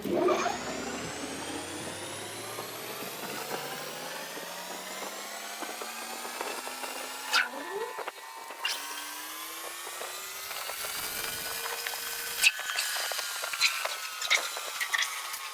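Lathe spindle motor whining as it speeds up, its pitch climbing slowly for about twelve seconds, then levelling off and easing down slightly. Scattered clicks and knocks sound over it, the sharpest about twelve and a half seconds in and several more near the end.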